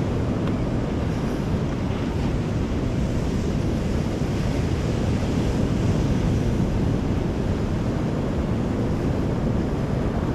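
Steady wash of ocean surf on the shore, with wind buffeting the microphone.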